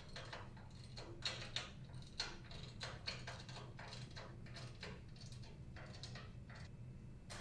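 Ratchet socket wrench clicking in short, irregular runs, a few clicks a second, as bolts are tightened down. A faint steady low hum lies underneath.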